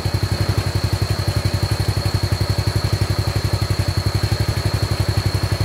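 An engine idling with an even, rapid low pulse, about a dozen beats a second, and a steady high-pitched whine over it.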